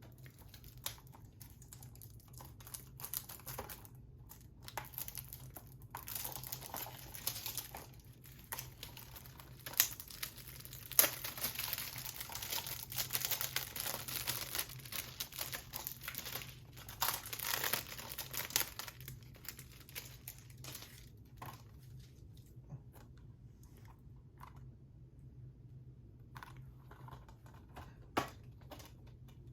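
Plastic shrink-wrap being torn and crinkled off a Blu-ray case, loudest in the middle, then a few scattered clicks near the end.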